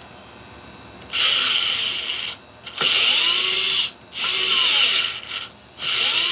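Vessel cordless ball-grip screwdriver running in four short bursts of about a second each, its motor whine rising and then falling in pitch in each burst. It is driving a long screw into raw wood without a pilot hole, a job it only sort of manages.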